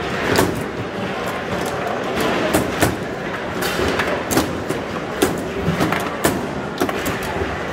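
Foosball being played: the hard ball cracking against the plastic figures and the table walls, with rods knocking and sliding. It comes as irregular sharp hits, about a dozen, over a steady background din.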